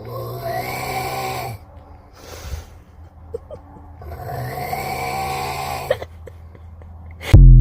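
A sleeper snoring loudly: two long drawn-out snores about three seconds apart, with quieter breaths between. A sudden loud burst near the end.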